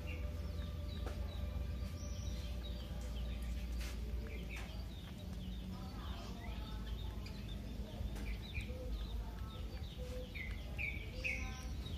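Outdoor ambience: small birds chirping in many short, quick calls over a steady low rumble.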